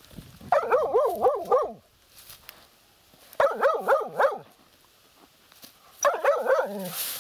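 Hunting laika barking in three quick bursts of four or five high-pitched barks each, a couple of seconds apart. It is barking at a hole in a reed heap, working game it scents hidden inside.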